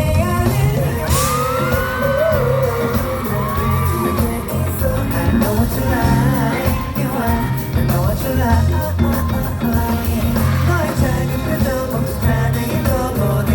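Live pop song played loud over a heavy steady beat, with singing and a crowd yelling and whooping over it.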